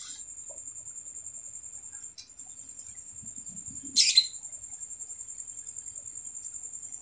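A cricket chirps in a steady, fast-pulsing high trill, with one short, sharper chirp about four seconds in.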